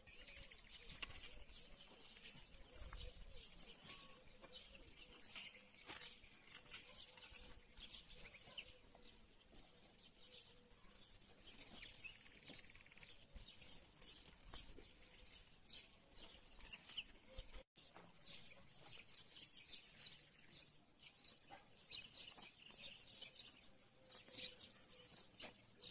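Faint, quiet ambience with small birds chirping now and then.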